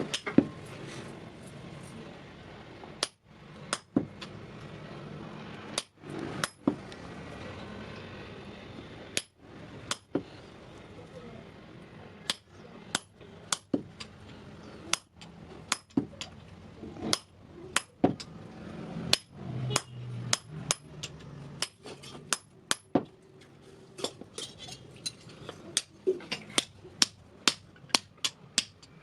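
Hand hammer striking steel on an anvil during forging: single sharp ringing blows, spaced out at first, then coming faster and more regularly in the last few seconds, over a low steady hum.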